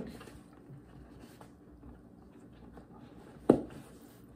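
Handling of a Peak Design Everyday Backpack's accessory strap and fabric as the strap is fitted to a loop: two sharp clicks, one at the start and one about three and a half seconds in, with faint rustling between.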